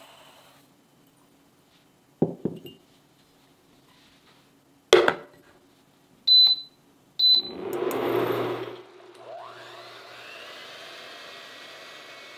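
A few sharp knocks of kitchenware on a wooden table, then an induction cooktop's touch button beeping twice, short and high. A short rush of noise follows, then an electric motor whirs up in pitch and runs on steadily.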